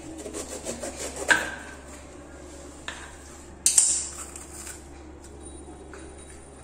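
Kitchen knife cutting a green bell pepper by hand, with a few sharp clicks and clinks, the loudest about a second in and just under four seconds in, the first leaving a short metallic ring. A low steady hum runs underneath.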